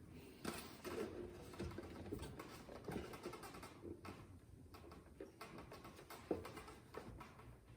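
Faint, irregular clicks and rustles of cables being pushed and handled through a plastic cable management grommet inside a PC case.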